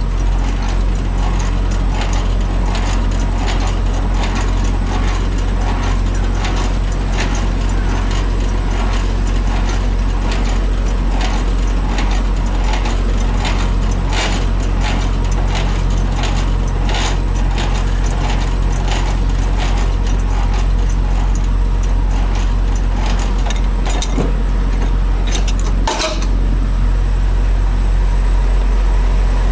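Semi-trailer landing gear being wound up by its hand crank, the gearbox clicking in a steady rhythm of about two clicks a second, over a diesel truck engine idling. A few sharp metal clanks near the end.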